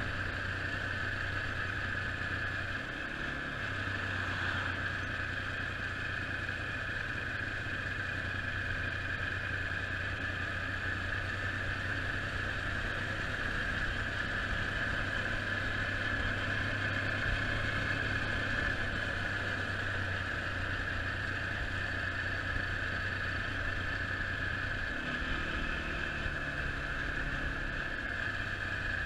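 Quad bike engine running steadily while being ridden along a road. The note shifts briefly about three seconds in and again near the end.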